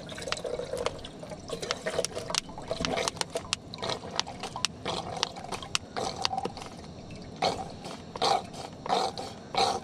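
Partly frozen, slushy water being poured from a container, with many small knocks and clicks of ice chunks. Near the end it glugs four or five times in a row.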